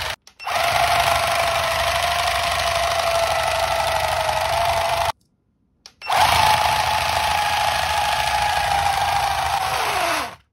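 Electric motor and gear drive of a motorised hand toy overvolted from a bench power supply, running with a steady high whine at 25 volts. It cuts out about five seconds in and starts again at 30 volts with a higher whine, which drops in pitch and stops just before the end.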